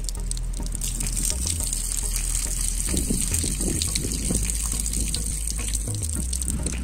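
Water pouring in a steady stream out of the rubber drain on the underside of a Dacia Sandero Stepway's body panel and splashing on the ground below: water trapped inside the panel draining out. The splashing grows livelier around the middle.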